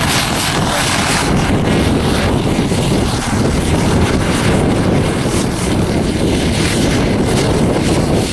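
Radio-controlled scale LongRanger model helicopter running steadily, with its engine and rotor droning as it flies low and comes in to land on grass.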